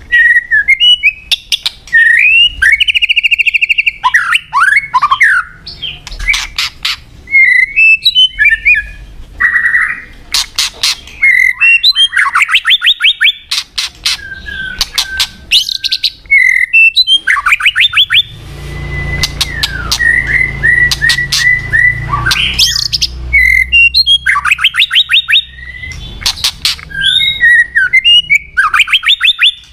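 White-rumped shama singing a loud, varied song of whistled phrases, rapid trills and sharp clicks, with short gaps between phrases. A low rumble runs under the song for a few seconds past the middle.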